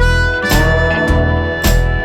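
Background music with a steady beat of about two strokes a second under long held melodic notes.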